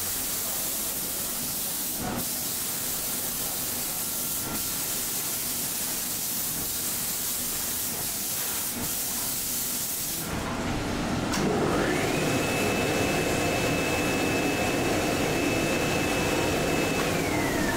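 Investment-casting shell-building machinery (ceramic slurry tank and stucco sander) running: a steady hiss for about ten seconds, then an abrupt change to a lower machine hum with a steady high whine that slides down in pitch near the end.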